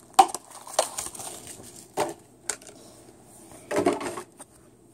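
Plastic packaging of a model car being opened by hand: a few sharp, separate cracks and clicks, then a short burst of crackling rustle near the end.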